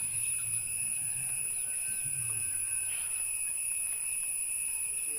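A steady, high-pitched insect chorus of a few even tones.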